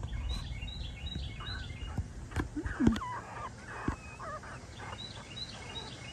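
A songbird singing phrases of quick, high, repeated chirps near the start and again near the end. In the middle, Pomeranian puppies give a few short squeaks and yips, the loudest about three seconds in.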